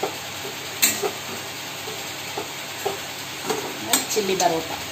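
Parotta pieces frying with a steady sizzle in a kadai while a metal spatula stirs and scrapes them, with sharp clicks of the spatula against the pan about a second in and again near the end.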